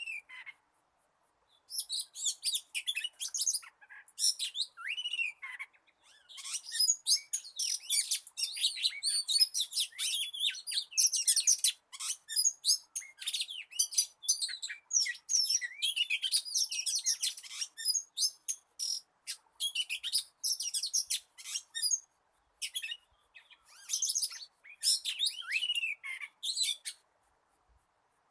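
Oriental magpie-robin singing a long, varied wild-type song of rapid chirps and sliding whistles, broken by a few short pauses.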